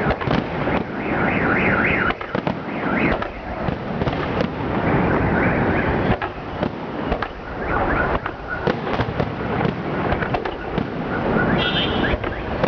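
Salute fireworks going off: a dense run of bangs and crackling over a continuous din.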